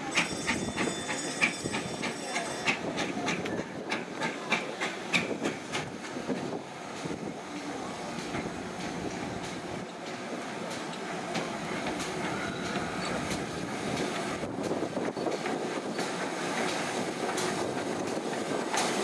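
GWR Modified Hall 4-6-0 steam locomotive 7903 Foremark Hall and its coaches rolling slowly into a station. For the first several seconds the wheels click over the rail joints. After that the train gives a steady rumble and hiss that grows a little louder as it draws near.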